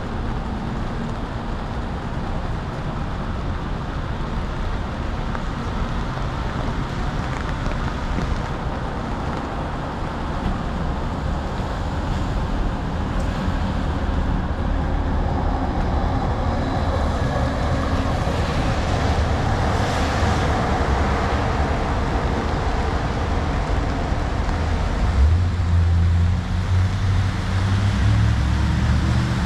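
City street traffic: cars passing with a steady hiss of tyres and engine hum, a heavier low engine rumble building up over the last few seconds.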